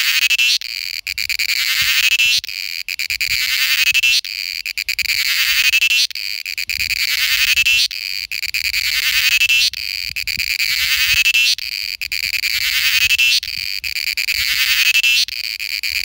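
Cicada singing its mating call, a loud, high-pitched buzzing phrase. Each phrase swells and then breaks off sharply, and it repeats roughly every two seconds.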